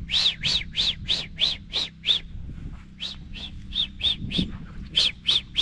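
A bird calling: short, high notes repeated about three times a second, in three runs with brief pauses between them.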